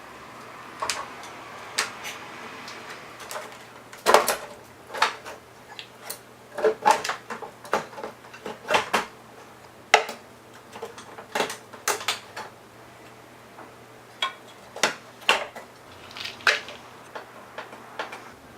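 Irregular clicks, taps and clunks of hard plastic parts and keys being handled as a Korg electric piano is worked on and put back together.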